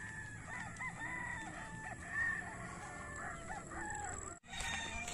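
Many gamecocks crowing over one another, several calls overlapping at once; the sound breaks off abruptly about four seconds in.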